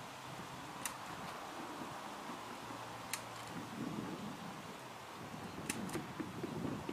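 Outdoor wind noise rumbling on the microphone, rising and falling, with a few short sharp clicks: one about a second in, one around three seconds, and two close together near the end.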